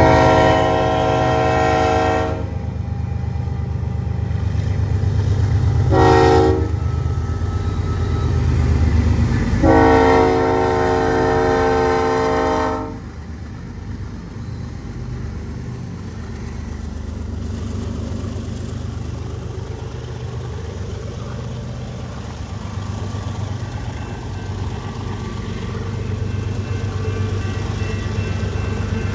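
Eastbound BNSF freight train sounding its multi-chime locomotive horn three times, long, short, long, over the steady low rumble of the passing train. The rumble carries on after the last blast ends about 13 seconds in.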